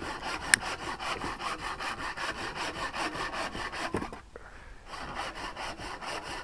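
Rusty hand saw cutting through a thin log in quick, even strokes, about five a second. A sharp click about half a second in, and a brief pause a little past the middle before the sawing resumes.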